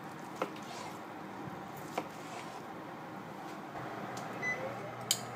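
Kitchen knife slicing through deep-fried tofu (atsuage) and tapping a plastic cutting board: a few sharp single clicks, about a second and a half apart, over a low steady room hum.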